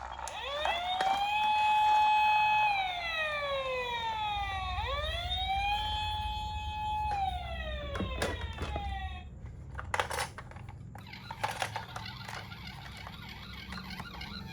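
Toy ambulance's electronic siren playing two wails, each rising, holding and falling, over a low rumble. It cuts off about nine seconds in, and a few clicks and knocks follow.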